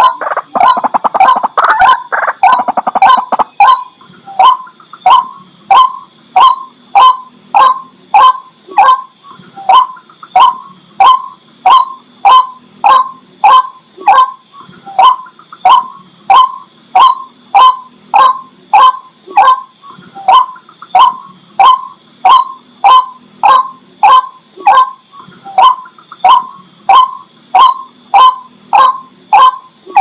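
White-breasted waterhen calling: a loud, rapid jumble of calls for the first few seconds, then a long monotonous series of single sharp notes, about two a second. Near the end the rapid calling starts again. A steady high hiss runs underneath.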